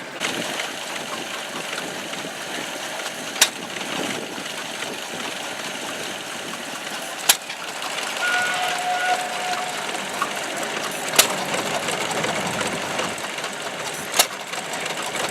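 Engine running steadily, with four sharp clicks spaced about every three to four seconds and a brief steady whistle-like tone in the middle.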